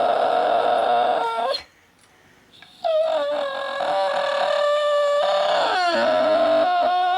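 Pit bull making long, drawn-out whining howls at a steady high pitch, fussing over a toy she won't share. One cry breaks off about a second and a half in, and after a short pause two more long cries follow.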